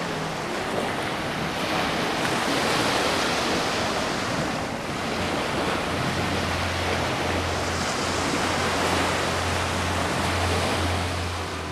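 Ocean surf washing onto a beach, a steady rush that swells twice. A low steady hum joins about halfway through.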